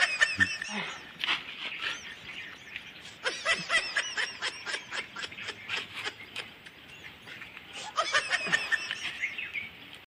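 Birds chirping: quick runs of short, high notes in three bursts, near the start, through the middle and near the end.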